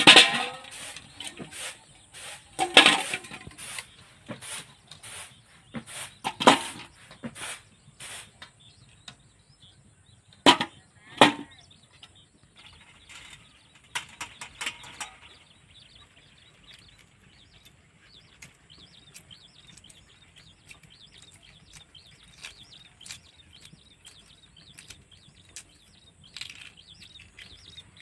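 Irregular sharp knocks and clatter, with a handful of louder strikes in the first dozen seconds, then faint scattered rustling and scraping.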